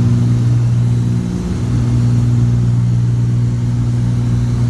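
Cessna T303 Crusader's twin turbocharged six-cylinder piston engines droning steadily in flight, heard inside the cabin. The low hum dips briefly about a second and a half in.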